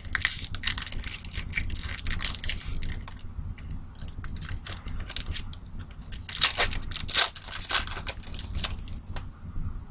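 Wrapper of a Topps Strata football card pack being torn open and crinkled by hand: irregular crackling and tearing, loudest about six to seven seconds in.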